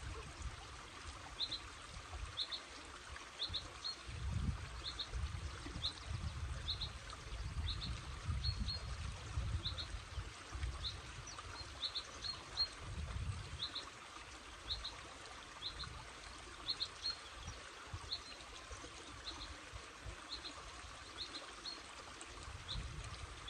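A small burn running over stones, a steady trickling hiss. A bird calls over it again and again, a short high double chirp about once a second, and low rumbles of wind come and go on the microphone.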